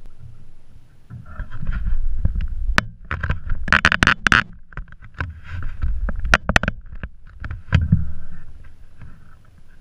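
Sharp knocks and clicks on a small fishing boat, thickest about three to four and a half seconds in, over a steady low rumble of wind and water against the hull, as an angler fights a hooked redfish.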